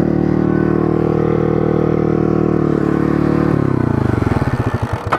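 Pit bike's small single-cylinder engine running at a steady speed, then dropping in pitch about three seconds in as it slows toward idle, its firing breaking into separate putts near the end.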